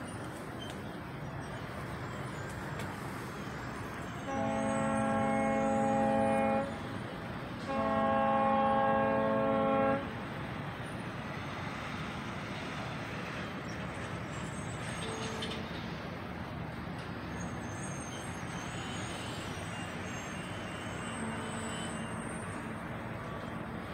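A distant horn sounding two long blasts of about two seconds each, a steady chord of several pitches, over steady outdoor background noise.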